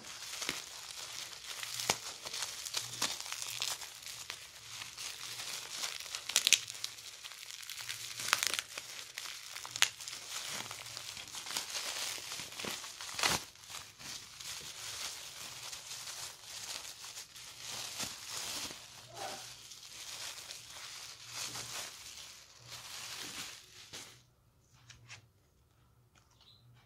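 Plastic bubble wrap crinkling and rustling as hands unwrap a small package, with sharp crackles throughout. The crinkling stops about 24 seconds in, leaving only a few faint handling clicks.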